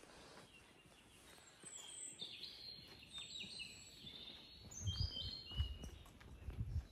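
Songbirds singing: runs of quick high chirps and short warbled notes over quiet outdoor background, with a few low thumps near the end.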